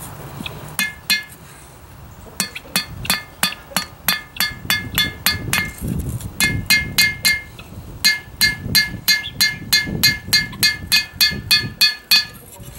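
Hand hammer striking a hot steel knife blank on an anvil while forging, about three blows a second, each blow ringing off the anvil. The hammering starts about a second in, pauses briefly, then runs steadily with a short break around the middle.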